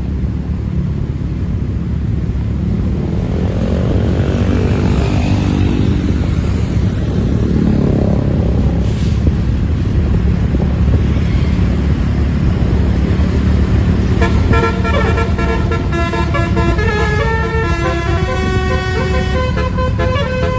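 A bus's engine runs with a heavy low rumble, its pitch rising and then falling through the first half. From about two-thirds of the way in, a telolet-style multi-tone musical bus horn plays a tune in stepped notes.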